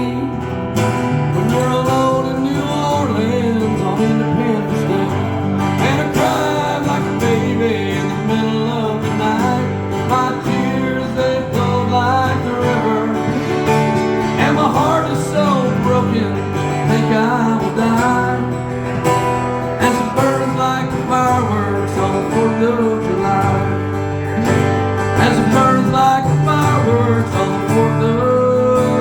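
Instrumental break in a live country song: acoustic guitar playing steadily under a wavering lead melody.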